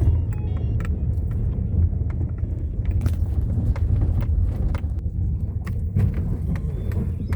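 Vehicle engine running with a steady low rumble, with scattered light knocks and rattles over it.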